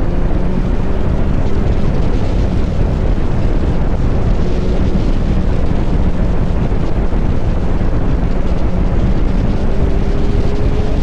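Kawasaki Z900 SE's inline-four, breathing through an SC Project CR-T exhaust, running steadily while riding, largely buried under wind rushing over the microphone. The engine note rises a little near the end.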